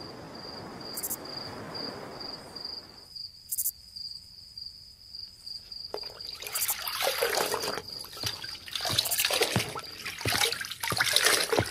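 Water sloshing and splashing irregularly as clothes are scrubbed by hand in a bucket, starting about six seconds in. Before that there is a faint hiss, with a steady high-pitched trill running through the first part.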